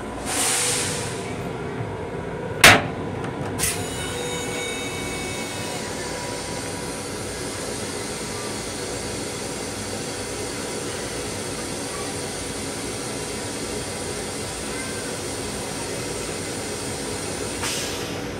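Long Island Rail Road M7 railcar toilet finishing its flush: a short burst of hiss just after the start, a sharp clack about two and a half seconds in and a smaller one a second later. After that comes the steady hum and rumble of the railcar.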